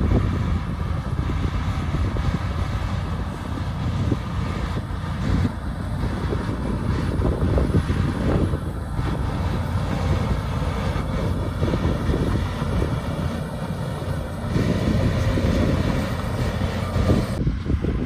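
Shantui DH17 C2 crawler bulldozer's diesel engine running under load as the blade pushes earth, a continuous low drone that swells and eases as it works.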